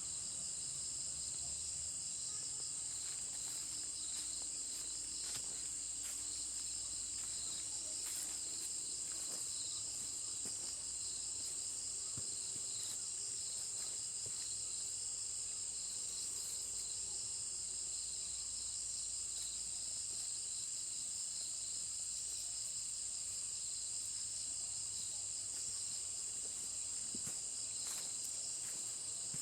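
Insect chorus: a steady high-pitched chirring with a second, pulsing chirp just beneath it, unchanging throughout.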